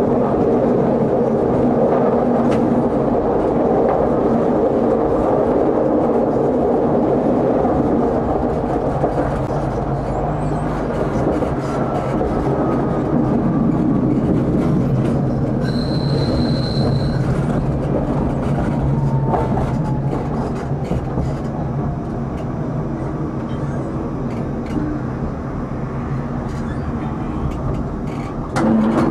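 Electric tram running along its track, heard from inside the driver's cab: a steady motor hum over wheel-on-rail noise with faint clicks. About halfway through there is a brief high squeal from the wheels on a curve, and the sound eases a little near the end as the tram slows for a stop.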